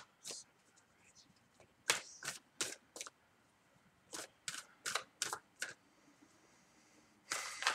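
Tarot cards being flipped and laid down, each one a sharp snap: about ten snaps in two quick runs, then a longer rustle of the cards near the end.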